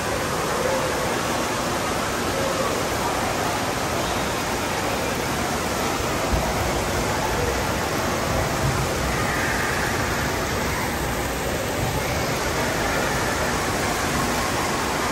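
Steady rush of moving water and crowd noise filling an indoor water park hall, with faint voices of swimmers mixed in.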